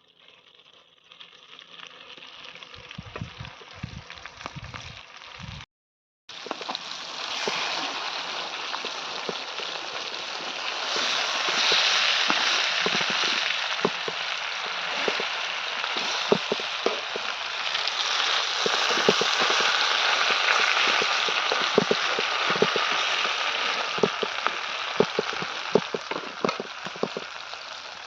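Marinated chicken leg pieces frying in hot oil: a steady sizzle with frequent sharp pops and crackles. The sound cuts out briefly about six seconds in and comes back louder.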